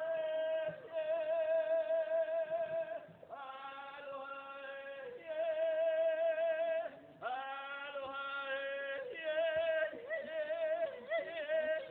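A man chanting solo without accompaniment, a Hawaiian chant (oli) sung in long held notes with a strong wavering vibrato, in phrases of two to four seconds with short breaks between.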